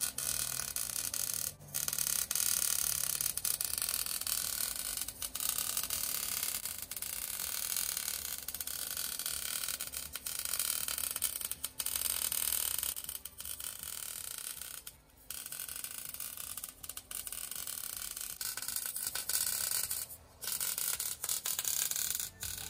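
Wire-feed (MIG) welder running a bead on a steel trailer frame: a steady crackling arc hiss, broken by a few short pauses between welds.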